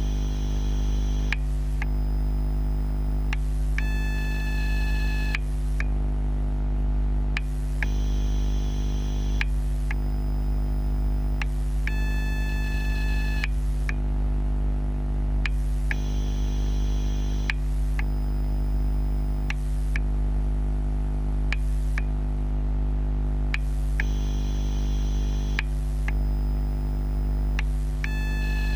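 An LCD Charger TGX12 Ni-MH/Ni-Cd AA battery charger, picked up through contact microphones, gives off a steady electrical hum and buzz while charging. High whining tones over it change every two seconds or so, with a faint click at each change, and the pattern repeats about every eight seconds.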